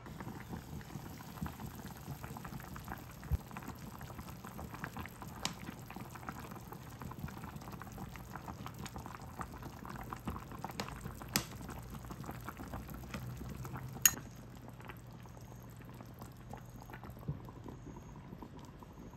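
A pot of liquid boiling on the stove, bubbling and crackling steadily. About fourteen seconds in there is a sharp click, after which the bubbling is quieter.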